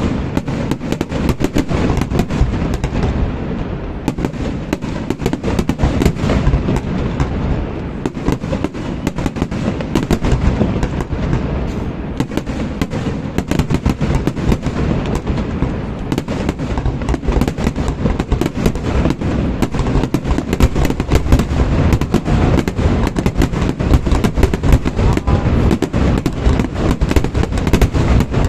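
Fireworks display: a continuous barrage of bangs and crackles, many reports a second without a pause.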